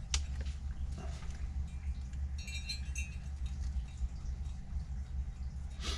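Light metallic clicks and a few short ringing clinks as a dirt-bike piston ring is handled and fitted into the cylinder, over a steady low hum.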